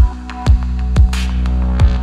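Electronic music with a deep kick drum about twice a second over a sustained low bass, and a brief hissing swell about a second in.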